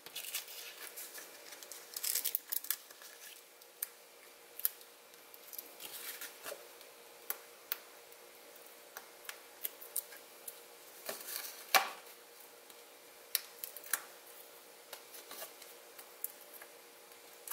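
Hands handling cardstock and peeling foam adhesive dimensionals off their sheet: quiet, scattered small clicks, taps and crinkles, with a sharper click about twelve seconds in.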